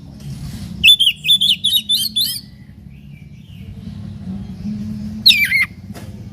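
Oriental magpie-robin singing: a quick run of loud whistled notes about a second in, then after a pause a single loud call that slides downward near the end, over a steady low hum.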